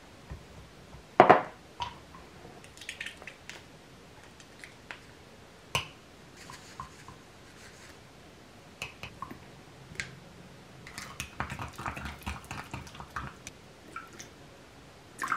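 Small kitchen handling sounds: scattered taps and clicks of a wooden spoon against a ceramic mug as a thick sauce is mixed, with a louder knock about a second in. Near the end, water is poured into a small stainless steel measuring cup.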